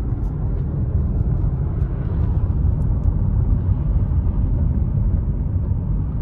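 Steady low rumble of a car driving on the highway, heard from inside the cabin: tyre and engine noise.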